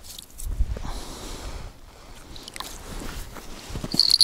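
Handling sounds at an ice-fishing hole: slush and ice being scooped from the hole and a tip-up spool being handled, with a short high buzzing rattle near the end.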